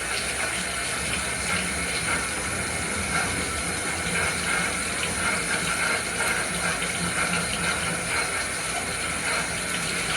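Running water, a steady rush of a tap or shower left on during a dog's bath.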